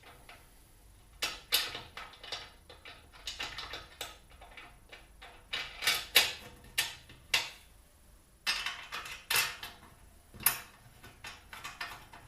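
Metal parts and tools being handled: irregular clinks and knocks, some ringing briefly, with the loudest hits about six and ten seconds in.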